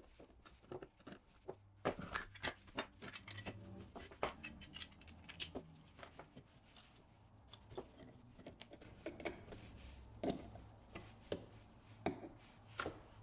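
Irregular light clicks and taps of a pressed-steel Mini Tonka toy cab and its small plastic parts being pried apart and handled, with knocks as pieces are set down on the bench.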